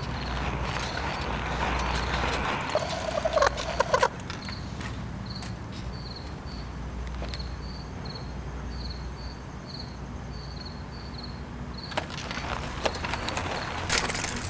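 Crickets chirping in short high pulses, repeating unevenly over a steady low hum. A brief warbling sound with a few sharp clicks comes about three to four seconds in.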